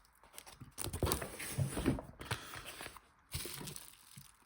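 Rustling, crinkling and light knocks of packaging as boxed and plastic-wrapped card products are handled and lifted out of a cardboard box.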